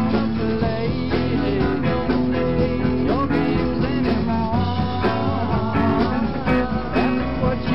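Rock band playing, with guitar and a lead line that bends up and down in pitch.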